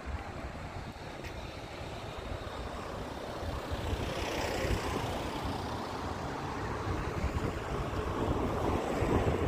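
Wind buffeting the microphone over a rush of road noise that swells about four seconds in.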